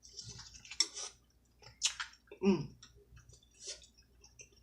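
Close-miked eating sounds: wet chewing and lip smacks, with several sharp smacking clicks and a short hum of the voice about halfway through.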